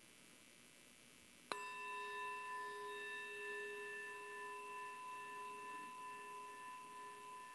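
A bell struck once about a second and a half in, then ringing on with a clear, steady tone that slowly fades.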